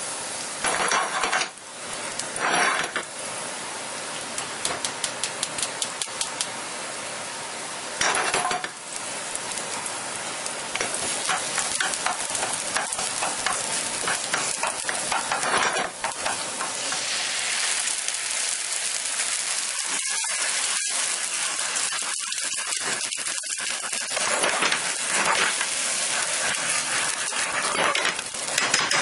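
Chopped garlic frying in olive oil in a nonstick frying pan, a steady sizzle, with metal tongs scraping and clicking against the pan. Later, tomato sauce sizzles in the pan as it is stirred with the tongs.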